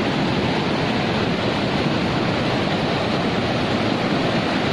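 Steady rush of a river in flood, loud and unbroken.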